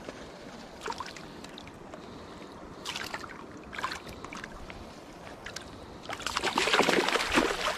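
Hooked trout thrashing at the surface as it is landed by hand: a few short splashes, then a loud burst of splashing about six seconds in, over the steady rush of creek water.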